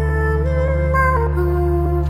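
Background music: a slow instrumental with steady held low notes under a melody that steps between a few pitches.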